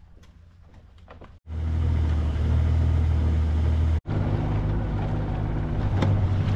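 Outboard motor on a small skiff running steadily underway: a low drone with rushing wind and water over it. It cuts in suddenly about a second and a half in and drops out for an instant about four seconds in.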